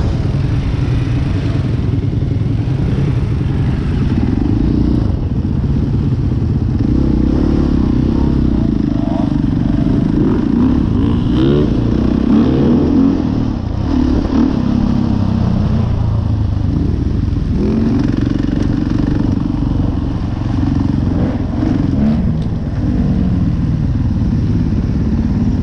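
KTM dirt bike engine running close to the microphone as the bike rides along, the revs rising and falling as the throttle is opened and closed, most clearly in the middle and again a little before the end.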